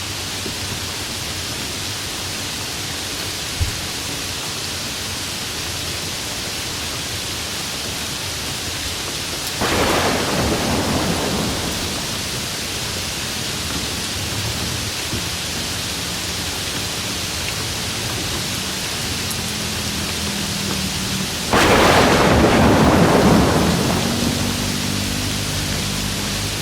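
Steady rain falling, with two sudden claps of thunder, about ten and twenty-two seconds in, each dying away over a couple of seconds; the second is the louder.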